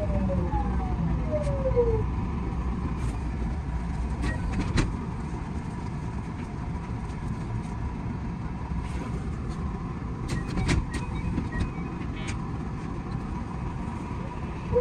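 JR West 207 series electric train heard from the driver's cab: its traction motor whine slides down in pitch for the first two seconds, then gives way to steady running noise with scattered sharp clicks from the wheels on the track, and the whine rises in pitch again right at the end.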